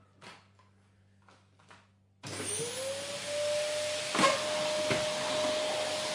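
A few faint clicks, then about two seconds in a vacuum cleaner switches on: its motor whine rises quickly and settles into a steady tone over rushing air. A sharp knock comes about two seconds after start-up, with a smaller one shortly after.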